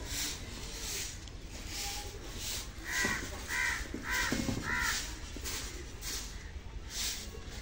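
A crow cawing four times in quick succession, about three seconds in. Behind it, the soft, repeated swishes of a short grass broom sweeping a dirt yard.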